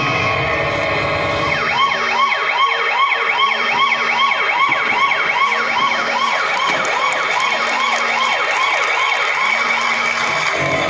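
A fast yelping siren, its pitch sweeping up and down about four times a second, with a short low tone recurring about every two seconds.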